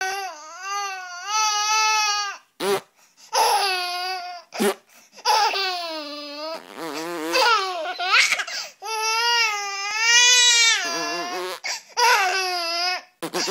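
A baby laughing in long, high, wavering squeals, each lasting a second or two. The squeals are broken a few times by short, sharp fart sounds.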